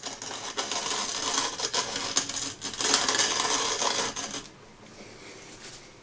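Hand-crank coffee grinder grinding coffee beans: a dense crunching, crackling run of rapid cracks with a brief break midway, stopping about four and a half seconds in.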